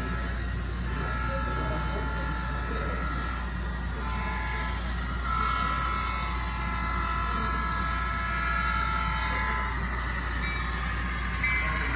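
Model diesel locomotive's onboard sound system blowing a multi-tone horn in several blasts, the last one held about four seconds, over a steady low hum.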